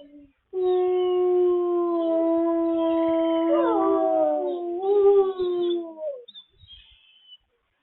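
Wolves howling together in long, held notes with several voices overlapping, one sliding down in pitch midway; the howl dies away about six seconds in.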